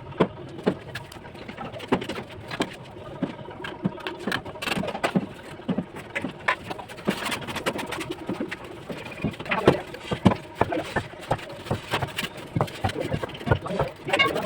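Bricklaying tools at work: irregular sharp taps and knocks, like a mason's trowel striking bricks and mortar.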